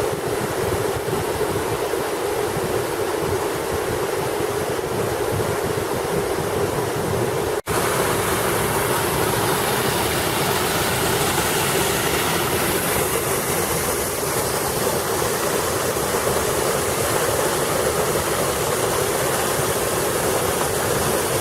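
Waterfall: a steady, loud rush of falling water. It breaks off for an instant about eight seconds in and resumes slightly brighter.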